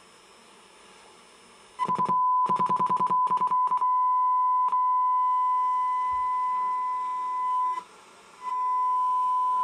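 A steady test tone from the Sony CRF-320 radio's speaker, received from an FM signal generator set to 100 MHz. It comes in about two seconds in, stuttering on and off at first, then holds steady, with a brief dropout near the end. The tone coming through at 100 on the dial shows the FM dial is accurately aligned, which the owner calls near as damn it perfect.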